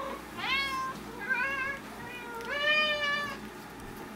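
Domestic cat meowing three times in a row; the first call falls in pitch and the last is the longest.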